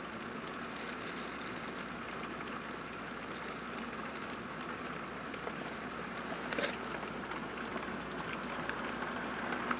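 Steady hiss of pouring rain, with one brief sharp tap about six and a half seconds in.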